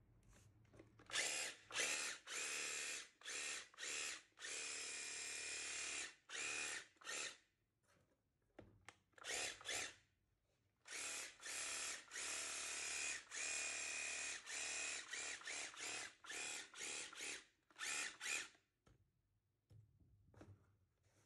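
Makita DUH601 battery-powered brushless hedge trimmer running its motor and reciprocating blades in a long series of short trigger bursts, with a pause of a few seconds partway through: a test run after the shear blade has been replaced.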